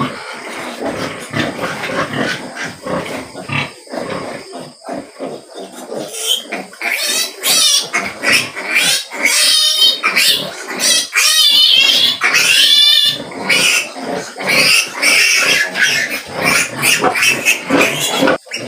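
Piglets squealing as they are caught and held up by the legs for iron-vitamin injections. The squeals are shrill and wavering, starting about six seconds in and loudest in the middle.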